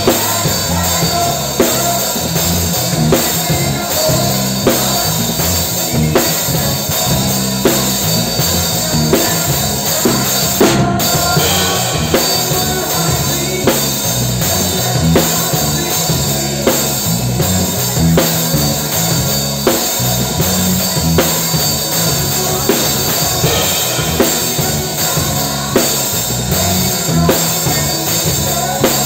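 Drum kit played in a live band, kick and snare keeping a steady beat with cymbals, heard close up so the drums are loudest. Underneath runs a changing keyboard and bass line.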